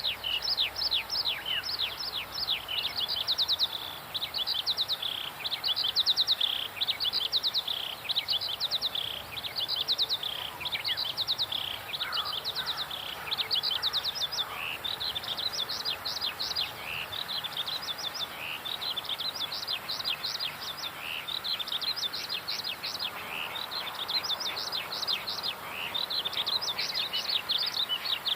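Birdsong: small birds chirping continuously in quick, high, downward-sweeping notes over a faint steady background hiss.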